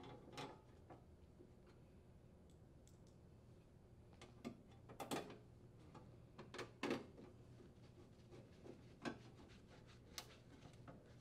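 Faint clicks and light metal knocks of a Phillips screwdriver threading screws into a sheet-metal access cover, with a cluster of louder knocks in the middle.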